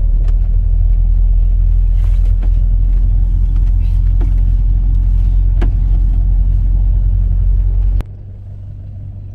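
Deep, steady rumble of a London black taxi's engine and tyres heard from inside the passenger cabin while driving, with a few faint ticks and rattles; about eight seconds in it drops abruptly to a much quieter hum.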